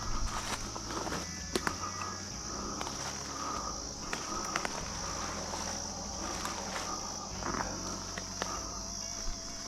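Steady, high-pitched trilling of an insect chorus in the woods, with scattered small clicks and rustles.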